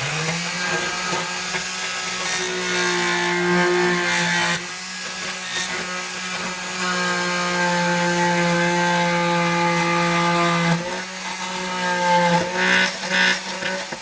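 Ridgid JobMax oscillating multi-tool with a saw blade cutting through 3/4-inch plywood: a steady pitched drone that starts at once and stops near the end, its pitch shifting slightly a couple of times as the blade meets the wood.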